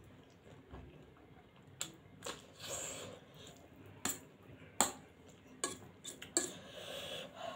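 Metal fork clinking and scraping against a stainless steel plate as noodles are gathered, with several sharp clinks. Between them come the mouth noises of slurping and chewing noodles.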